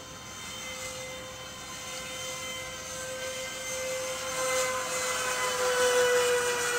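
Radio-controlled Airbus A380 model's engines whining at a steady pitch as the plane flies overhead, growing steadily louder, with a rushing hiss building from about four seconds in. This is the moment an engine on the left wing fails and sheds parts.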